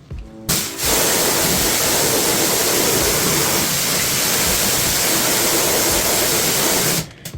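Steady rushing water spray, as from a cleaning spray nozzle rinsing air conditioner parts, with a short burst about half a second in, then a continuous spray that cuts off suddenly near the end.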